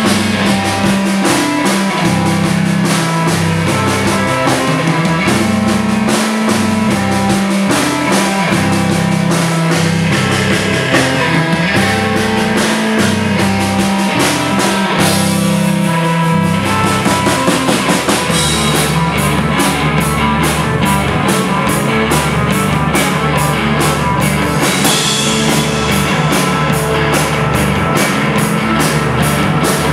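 Live rock band playing loud: two electric bass guitars carry a heavy bass line over a drum kit, with electric guitar. A little past halfway the part changes to a denser, steady drive with even drum hits.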